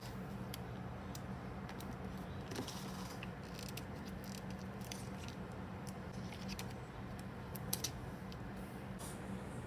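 Journal-making handling sounds: scattered small clicks and brief rustles of paper and stationery, a little busier about two to three seconds in and near eight seconds, over a steady low hum.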